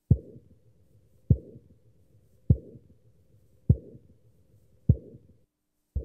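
Mimicked heart sounds made by tapping and rubbing in circles on the back of a hand under a stethoscope diaphragm: a sharp, muffled thump about every 1.2 seconds, each followed by a short rubbing whoosh that fades away. It imitates the crescendo-decrescendo ejection murmur of aortic stenosis.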